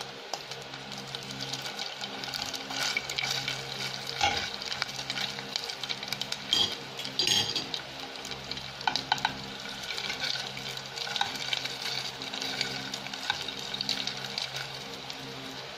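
Tuna nugget mixture frying in hot cooking oil in a pan, sizzling and crackling throughout. There are a few louder spurts of sizzle as more spoonfuls go in and a spoon pushes the pieces around.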